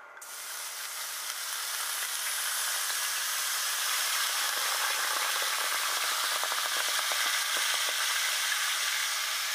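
Red wine (Cabernet Sauvignon) hitting a hot pan of butter, olive oil and veal drippings, sizzling as it deglazes the pan. The sizzle starts suddenly, swells over the first second or two and stays pretty loud and steady, with faint ticks in the second half.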